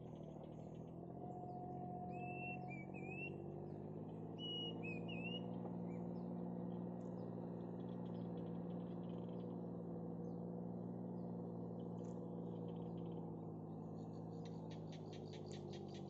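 A steady low hum of several pitches runs throughout, with a few short warbling bird chirps a couple of seconds in and a fast run of clicks near the end.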